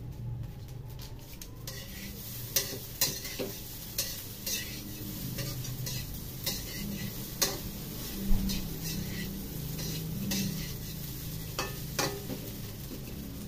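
Metal spatula scraping and knocking against a stainless steel wok as rice is stir-fried, with irregular sharp clinks over a steady sizzle.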